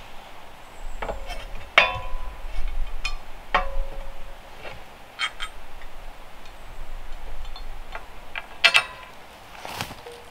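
Steel solar-panel racking parts clinking and knocking together as they are handled and fitted, a series of sharp metallic knocks a second or more apart, some ringing briefly.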